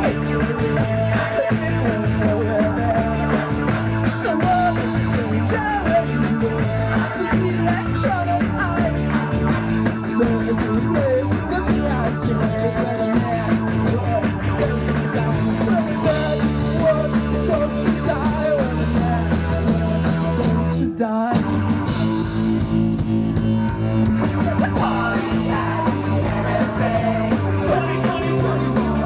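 Live indie rock band playing, with electric guitar, drums and bass under a lead vocal. About two-thirds of the way through, the whole band cuts out for a split second, then comes straight back in.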